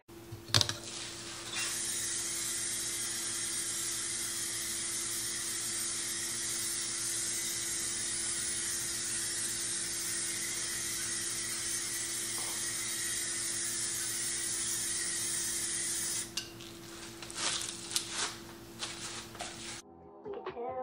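Aerosol spray paint can with a trigger handle spraying in one long continuous hiss of about fifteen seconds, then several short bursts. Background music comes in near the end.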